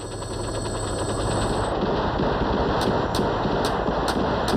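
Dense, rapid automatic-weapons fire crackling over the steady drone of a helicopter, with a few sharper single cracks standing out in the second half.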